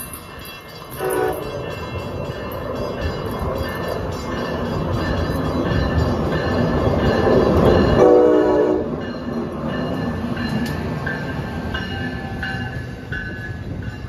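An Amtrak passenger train led by an ACS-64 electric locomotive rolls in on the track beside a stopped CT Rail M8 electric train, its rumble building to a peak about eight seconds in. A train horn sounds briefly about a second in and again, longer, at the loudest point.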